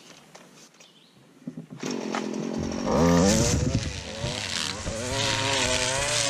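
Gas string trimmer engine starting up about two seconds in, revving up sharply a second later, then running at high speed with its pitch wavering as it cuts through weeds and grass.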